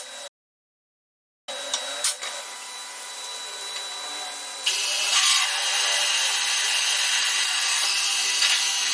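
A power tool running steadily with a thin high whine, after about a second of dead silence. About five seconds in it turns louder and rougher, as if the tool bears into the work.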